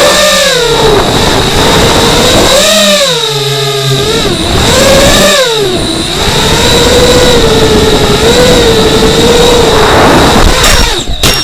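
FPV racing drone's motors whining, the pitch swinging up and down as the throttle is worked, over a steady high tone. A quick run of sharp knocks comes near the end.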